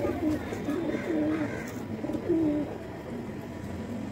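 Domestic pigeons cooing: about four short, low coos in the first two and a half seconds, then a quieter stretch.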